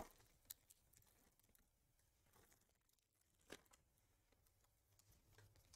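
Near silence, broken by a few faint, brief crinkles and ticks from a torn-open foil trading-card pack and its cards being handled. The clearest come about half a second and three and a half seconds in.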